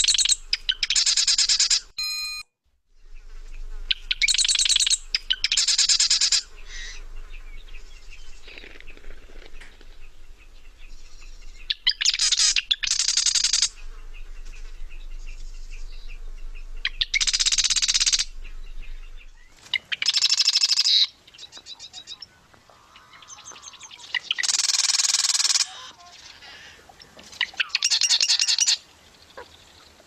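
Marsh wren song: a run of liquid, squeaky, rattling trills, each about a second long, repeated every few seconds, with fainter bird chatter between them. The trills have a very mechanical sound.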